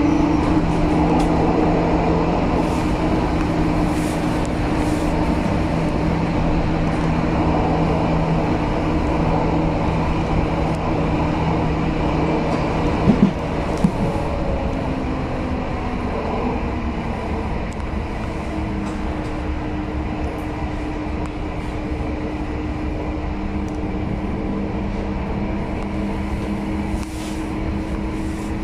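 Interior of a 1977 Stadtbahn light-rail car under way: a steady rumble of wheels and running gear with a humming drive tone. The tone holds steady at first, then shifts in pitch in the second half. Two sharp clicks come about halfway.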